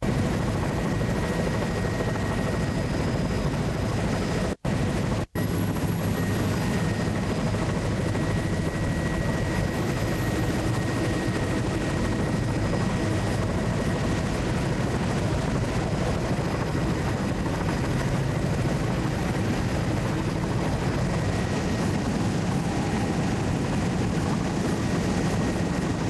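Steady drone of the survey aircraft's engine, heard from inside the cabin. The sound cuts out twice for an instant about five seconds in.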